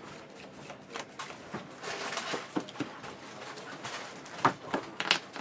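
Sleeved trading cards being shuffled and handled, with light clicks and taps of cards on a playmat, a stretch of rustling shuffling about two seconds in and a few sharper card taps near the end.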